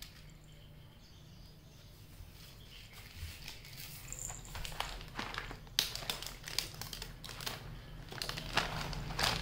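Cat eating from a small plastic dish: irregular crunching and clicking that starts about three seconds in and grows busier and louder toward the end.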